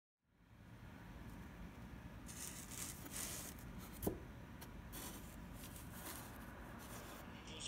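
Hands fitting a felt-covered floor panel into a small model camper shell: soft scraping and rustling of felt against the walls as it is pushed and smoothed down, with one sharp tap about four seconds in.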